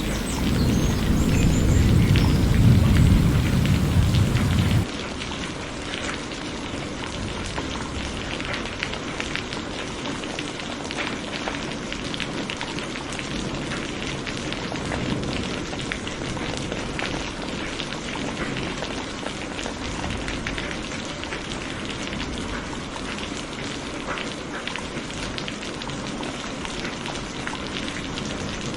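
Steady rain falling, a dense patter of drops. A low thunder rumble fills the first five seconds and cuts off suddenly, leaving the rain alone.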